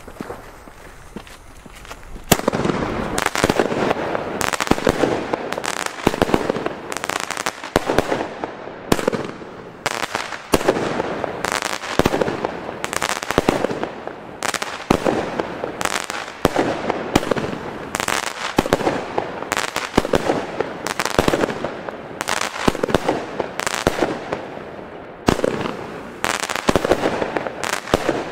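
Nico 'Kapstadt' fireworks battery firing. After about two seconds of quieter fuse burn, a rapid, unbroken run of shots begins: tubes launching brocade-crown stars that burst overhead with crackling.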